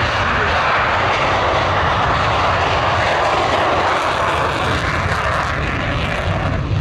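Saab 37 Viggen's Volvo RM8 afterburning turbofan running at takeoff power as the jet rolls down the runway: a loud, steady jet noise. Near the end it turns to a heavier, fluttering low rumble.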